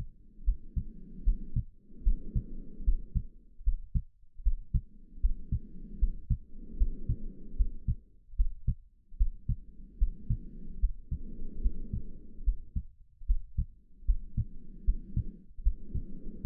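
Heartbeat thumping in a steady rhythm under slow, audible breathing. Each breath is an in-breath and an out-breath of about a second and a half each, with a short pause before the next pair, about every four to five seconds.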